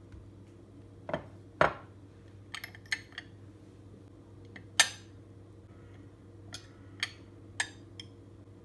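A metal knife clinking and tapping against a small glass bowl and a glass plate as butter and cheese are set out: a string of sharp clinks, the loudest about five seconds in. A faint steady low hum runs underneath.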